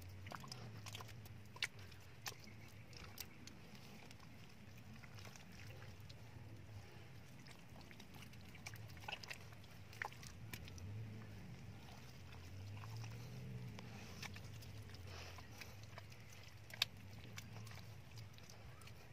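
Hand patting and smoothing wet mud around the rim of a buried clay jar: faint wet squelches and slaps with a few sharp clicks, over a low steady hum.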